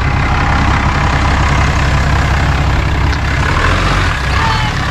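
Ram 2500 pickup's engine running steadily with a deep rumble while the truck pulls a fifth-wheel camper off the grass and back onto the road.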